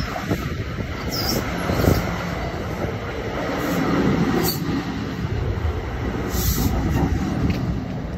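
NJ Transit Multilevel bilevel passenger coaches rolling past close by: a steady rumble of steel wheels on the rails, with scattered clicks and knocks.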